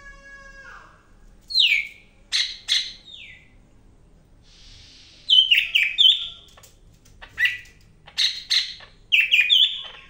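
Caged cucak hijau kepala kuning (yellow-crowned 'cak ijo Medan' leafbird) singing in loud bursts of sharp, quick, mostly downward-sliding chirps and chattering notes, grouped in several clusters with short pauses between. A steady whistled note fades out in the first second.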